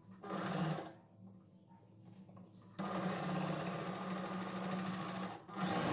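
Sewing machine stitching the blouse's main fabric and lining together. It runs in a short burst near the start, goes quiet, then runs steadily for about three seconds from around three seconds in.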